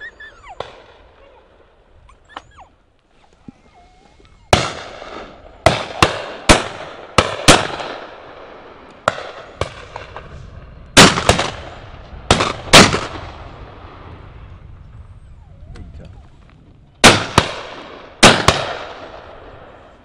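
Shotguns firing at high driven birds: about fifteen shots in all, starting about four seconds in, many in quick doubles a fraction of a second apart, each trailing off. After a lull near the end come two more pairs.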